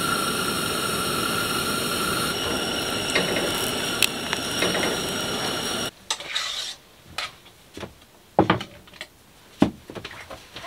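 Steady hiss of a camp stove burner with a pan on the flame, which stops abruptly about six seconds in. Then several separate knocks and clinks as a pot is set down on a wooden board and a plate is handled.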